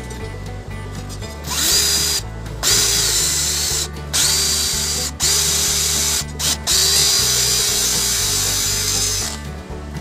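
Cordless drill running in several short bursts with brief stops, each start rising into a whine, as a homemade swaging bit turns in the end of a copper pipe clamped in a flaring block to widen it into a socket. Background music plays underneath.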